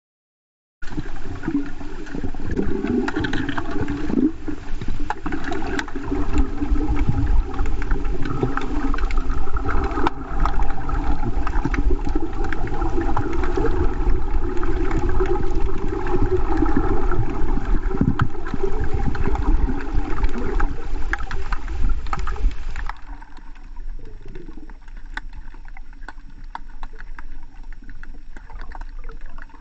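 Underwater water noise recorded while snorkelling over a coral reef: a muffled, steady rushing and bubbling sound with scattered crackling clicks, becoming quieter near the end.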